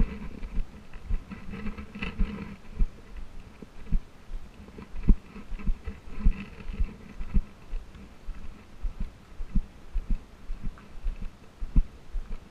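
Footsteps on a sandy trail, about two a second, each footfall a dull low thud carried through a body-worn camera.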